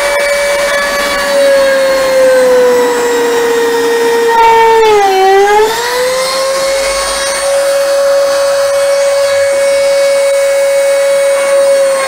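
Flex-shaft rotary tool with a thin drill bit running at high speed with a steady whine, drilling pilot holes in thin plywood so the screws won't split it. About five seconds in, the pitch dips briefly and then comes back up.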